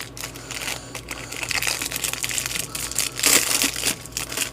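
Trading cards and plastic being handled close by: irregular rustling and crinkling with many light clicks.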